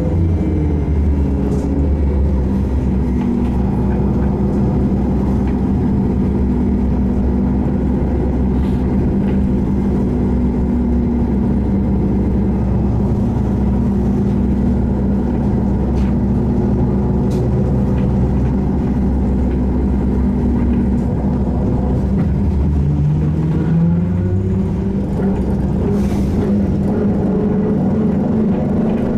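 SVARZ-MAZ-6235.00 trolleybus under way, its electric traction drive whining over the rumble of the running gear. The whine falls in pitch at the start as the trolleybus slows, holds steady while it runs on, then rises again near the end as it picks up speed. Light rattles and clicks come now and then.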